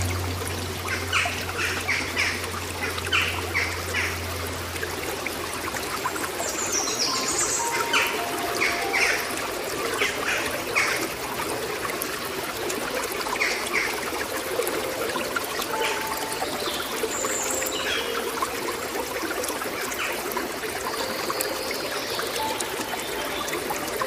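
Water trickling and splashing steadily, like a small stream over rocks, with short bird calls now and then. A low steady hum fades out about five seconds in.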